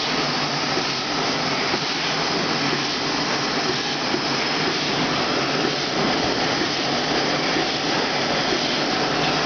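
Rotary cooking oil filling and capping machine running, a steady even machine noise with no breaks.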